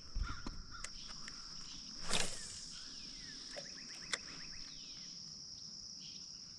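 Insects trilling in a steady, high-pitched drone. A short swish about two seconds in is the loudest sound, with a few light clicks around it.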